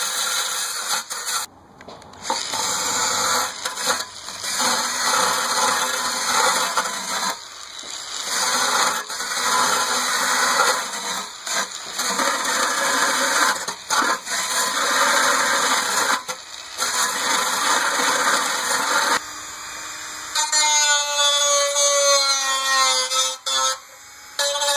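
Power drill with a wire wheel brush scrubbing an aluminum snow shovel blade, running in long bursts with brief stops, taking off rust and oxide to prep the metal for brazing. About twenty seconds in it stops, and music with a held tone follows.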